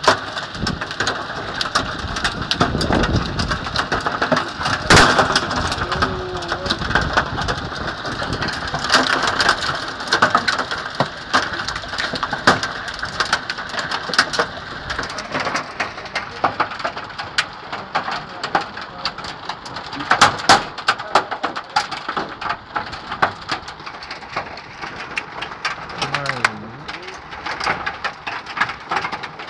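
Heavy rain mixed with large hailstones, ping-pong to golf-ball size, pelting a street, lawn and shrubs. A steady hiss of rain is crossed by many sharp, irregular clicks and cracks of individual hail strikes.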